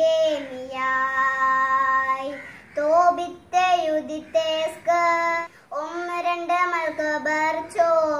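A young girl chanting the names of the books of the Bible in Malayalam in a sing-song voice, drawing some names out on long held notes.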